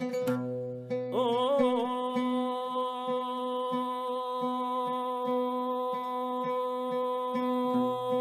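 An oud plucks a short phrase. From about a second in, a man's voice holds one long note, wavering at first and then steady, over the oud striking a low note again and again.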